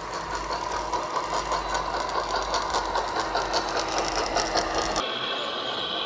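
RC Caterpillar tracked loader's electric motors and hydraulic pump whirring under load, with a dense rattle of clicking gear and track noise. About five seconds in it switches abruptly to the steadier, higher whine of an RC Volvo excavator's hydraulic pump.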